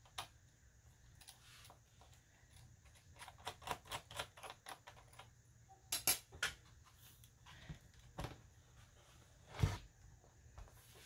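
A small screwdriver working the screws out of a laptop's plastic bottom cover: a run of light, irregular ticks and clicks, with one louder dull knock a little before the end.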